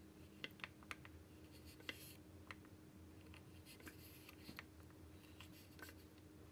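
Faint scattered clicks and taps of a miniature knife cutting orange segments on a tiny wooden cutting board, the sharpest few in the first two seconds, over a low steady hum.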